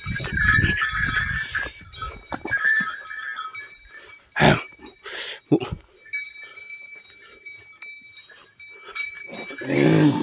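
Livestock calling: a short call about four and a half seconds in and a longer, louder one near the end. Rustling from the first couple of seconds runs under it.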